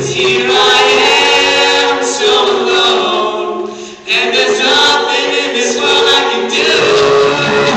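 Men's a cappella group singing close-harmony chords through microphones. The chord dies away about three to four seconds in, then the full group comes back in suddenly and holds on.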